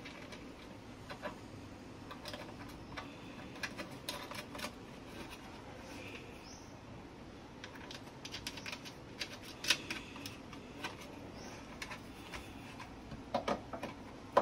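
Light, irregular clicks and scrapes of a mixer grinder's plastic housing and its replacement speed regulator switch as the switch is fitted into its hole and worked in by hand. A few sharper clicks come near the end.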